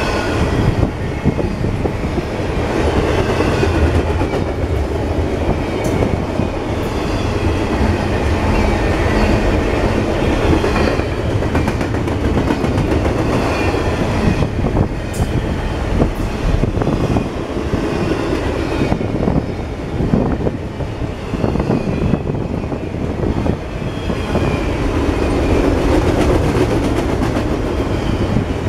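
CSX double-stack container train's well cars rolling past close by: a steady, loud rumble of steel wheels on the rails, with a few sharp clicks now and then.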